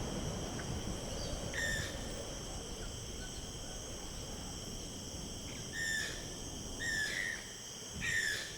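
A steady, high-pitched insect chorus like crickets trilling, with a short, slightly falling call repeated four times, most of them in the second half.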